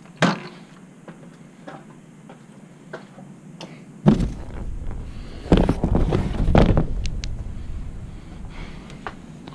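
A few knocks as a stepladder is handled. Then, from about four seconds in, loud scraping and rustling as a suspended-ceiling tile is pushed up and slid aside, with a second, longer burst a couple of seconds later.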